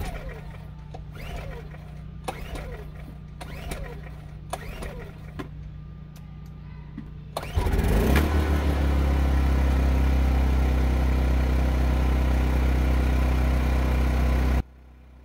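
Recoil starter cord of a Champion 2000-watt dual-fuel inverter generator yanked about half a dozen times on choke, each pull a short falling whirr. About seven and a half seconds in, the small engine catches on propane and runs steadily and loudly, then cuts off suddenly near the end.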